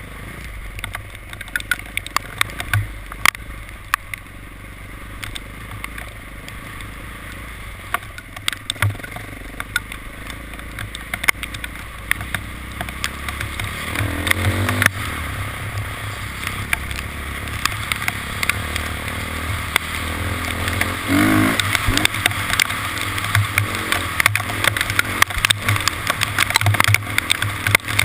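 A vehicle engine running on the move, with many sharp clicks and knocks over it. The engine note changes pitch about halfway through and again about three-quarters of the way in, and the sound grows louder after the first change.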